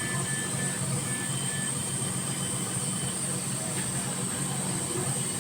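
Steady machine hum with a constant high-pitched hiss, and a few faint short beeps in the first couple of seconds.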